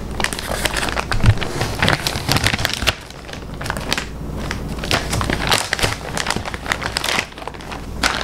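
Plastic poly mailer bag crinkling and crackling irregularly as it is gripped and turned over in the hands.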